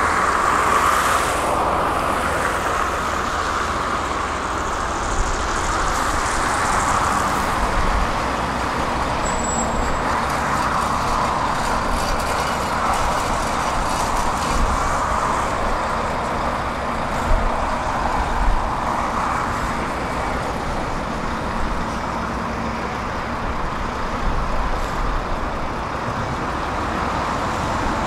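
Heavy construction machinery running steadily with a low rumble, its engine note swelling and easing, and a couple of short knocks about two-thirds of the way in.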